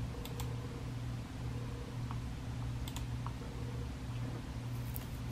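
A few sparse, light computer-keyboard clicks over a steady low hum.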